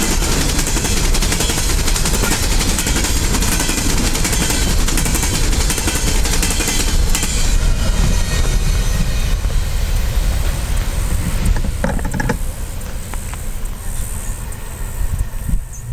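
Coal train's cars rolling past on the rails: a dense rumble with rapid, rattling wheel clatter that thins out and dies away about twelve seconds in.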